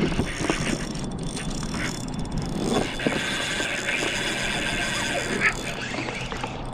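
Spinning reel whirring during the fight with a hooked redfish, strongest for a few seconds in the middle, over a steady background hiss.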